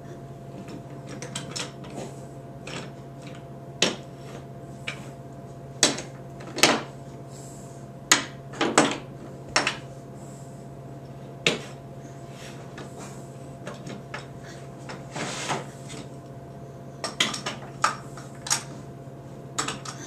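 Wooden toy train cars and track pieces clacking and knocking as a child handles them on a train table, in irregular clicks and taps, a few of them a little longer.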